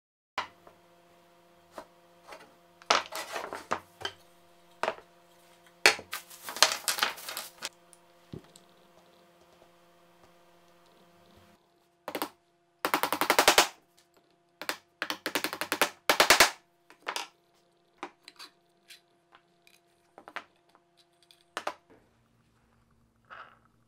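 Bursts of rapid sharp taps as a claw hammer drives a metal pin into plywood, with scattered single knocks of parts being handled on the bench between them. A faint steady hum lies underneath.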